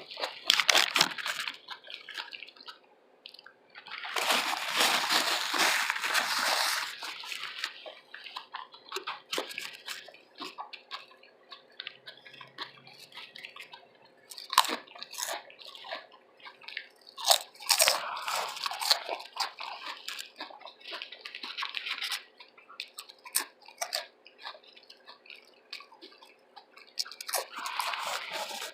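Close-miked chewing and biting of a loaded veggie tuna sub: crunching bites and wet mouth clicks. Longer stretches of dense crunching come about 4 to 7 seconds in, again around 18 to 22 seconds, and near the end.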